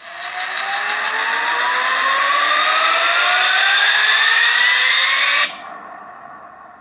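E-bike's 3,000-watt mid-drive electric motor revving up, its whine rising steadily in pitch for about five and a half seconds. The power then cuts off suddenly and the motor winds down quietly.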